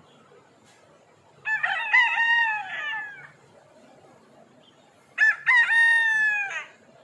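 Rooster crowing twice, two loud cock-a-doodle-doo calls a few seconds apart, the first trailing off and the second ending abruptly.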